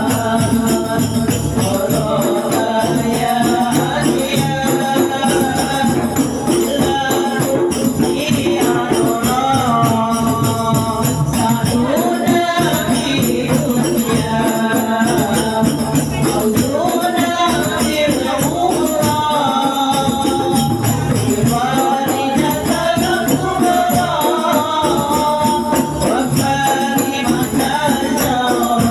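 Voices chanting an Arabic devotional song (sholawat) in long, bending melodic lines over continuous percussion.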